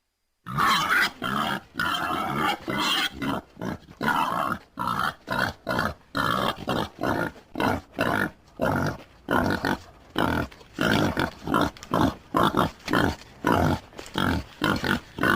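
Wild boar grunting in a continuous series of short, rough grunts. They come about two a second at first and quicken to about three a second in the second half.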